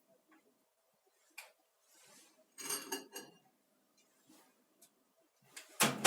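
Glass dishware and utensils clinking: a light tap about a second and a half in, a short run of clinks around the middle, and a louder knock near the end.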